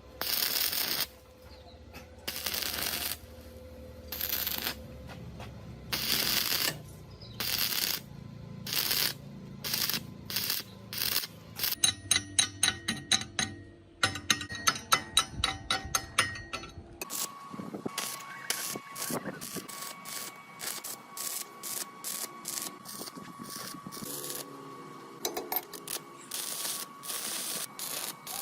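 Workshop hand-tool work on metal: rasping strokes about one every second and a half, then runs of quick sharp clicks and ticks.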